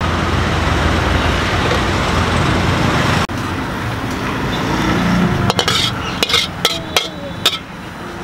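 A steady rushing noise that breaks off abruptly after about three seconds. From about halfway on, a metal spatula clanks against a wok in a run of sharp, irregular strikes, as in stir-frying.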